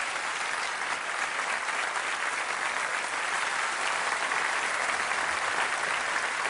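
Large audience applauding steadily: dense, even clapping.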